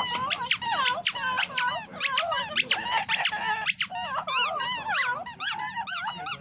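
A pet bird attacking a toy: a rapid run of loud, high squeaks that sweep up and down in pitch, about two or three a second.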